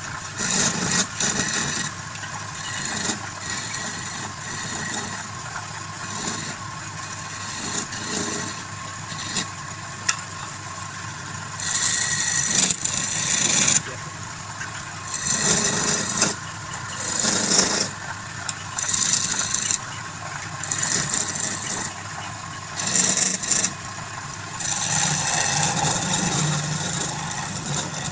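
Woodturning lathe running with a steady motor hum, while a tool works the spinning wood in repeated hissing bursts of a second or two.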